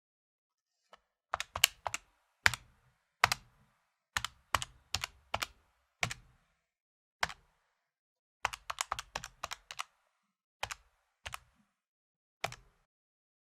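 Calculator keys being tapped with a finger, plastic clicks that come singly and in quick runs of several presses, with short pauses between.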